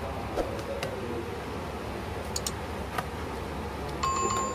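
A few light clicks of plastic and a tool being handled on a laptop's palm-rest and keyboard cable, over a steady hum. A short high electronic tone sounds near the end.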